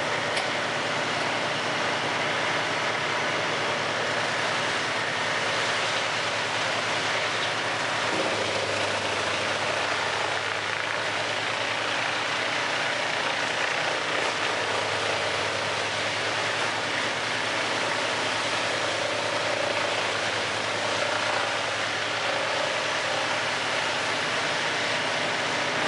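Wood chipper running steadily under load, grinding a log into chips: a dense, even mechanical noise, with a low hum coming in about a third of the way through.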